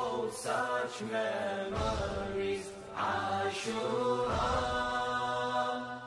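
Wordless chanting from a Muharram nawha: layered voices holding and gliding on long notes over a low beat about once a second.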